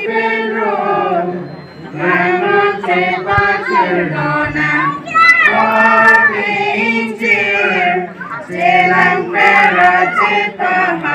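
A group of young female voices singing a song in Karbi together in held, sustained notes, phrase by phrase, with short breaks for breath about two seconds in and again about eight seconds in.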